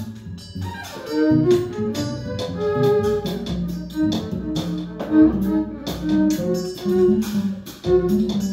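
Small live band playing: a bowed violin over guitar and drum kit, with frequent sharp percussion hits among the moving pitched notes.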